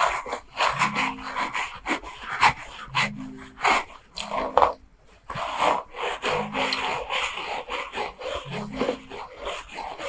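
Plastic scalp scrubber brush scrubbed through hair and over the scalp, giving a dense crackling, scratchy rustle. A short low hum comes back every couple of seconds underneath it.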